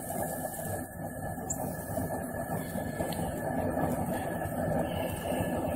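Propane jet burner under a large stockpot running with a steady low rumble, while boiling water drains from the lifted perforated aluminium strainer basket back into the pot.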